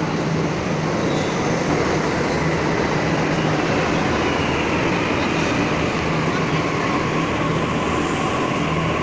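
Delhi Metro train running: a steady rumble with a faint high whine that drifts slowly in pitch.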